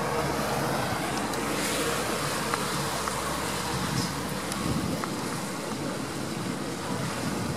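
Steady hum and rushing noise aboard a river cruise boat: the boat's motor running, with wind on the microphone.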